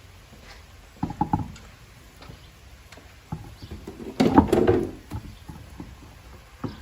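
Two bouts of knocking and rattling as parts are handled, a short one about a second in and a louder, longer one about four seconds in, with a few single taps between.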